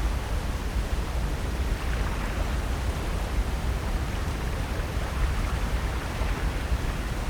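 Steady wash of ocean surf, an even hiss with a low rumble underneath and no distinct breaks or events.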